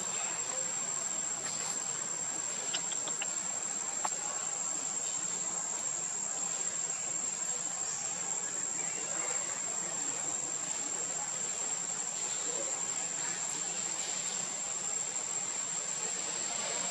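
Steady insect chorus, crickets or cicadas, holding one constant high whine over an even background hiss, with a couple of faint ticks.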